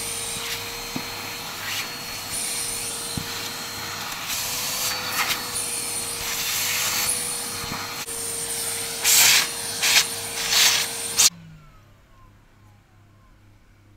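Small handheld vacuum cleaner running with a steady whine as it is worked over a foam filter ring. There are several louder rushes of air near the end before it is switched off about 11 seconds in.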